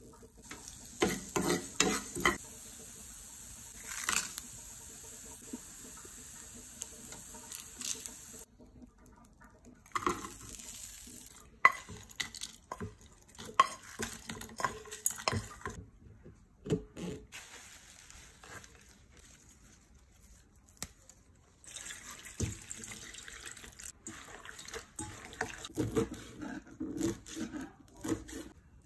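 Spices and dals sizzling in oil in a small frying pan while a spoon stirs and clicks against it, cutting off after about eight seconds. Then a metal spoon scrapes and taps the roasted seeds out of the pan into a steel grinder jar. Near the end, a knife chops green amaranth leaves on a plastic cutting board in a quick run of knocks.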